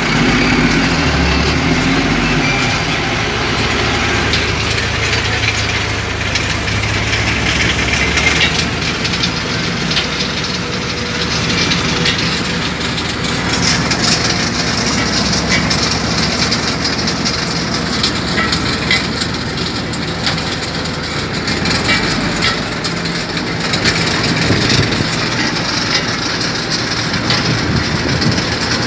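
Peat-harvesting machinery running steadily, with a continuous mechanical clatter of many small knocks over an engine hum.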